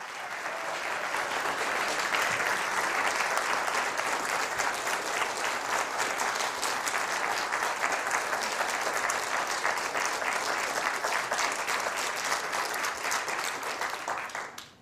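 Studio audience applauding steadily, with a dense patter of many hands clapping that dies away near the end.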